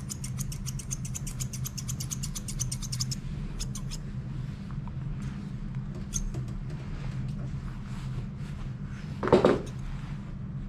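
Grooming shears snipping quickly for about three seconds, then a few scattered snips, over a steady low hum. About nine seconds in, the small dog being scissored lets out one short cry.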